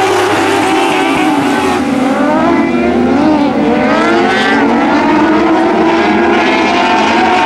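Pack of dwarf race cars running together, their high-revving motorcycle engines making several overlapping notes. The notes dip and climb around the middle as the cars go through a turn.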